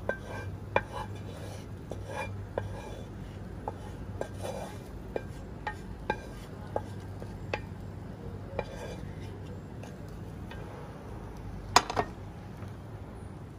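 Wooden spoon scraping and knocking against a ceramic-coated frying pan, a series of short light knocks about every half second. Near the end, a louder double knock as the pan is set down.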